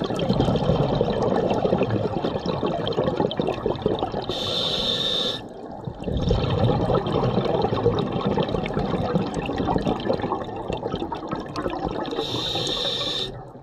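Scuba diver breathing through a regulator underwater: a crackling rush of exhaled bubbles, a hissing inhalation about four seconds in, a short pause, more bubbles, and a second inhalation near the end.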